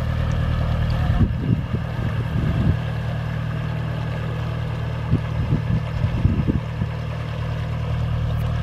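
Narrowboat's diesel engine running steadily at cruising speed as the boat passes, a low, even chug, with two spells of wind buffeting the microphone, about a second in and again about five seconds in.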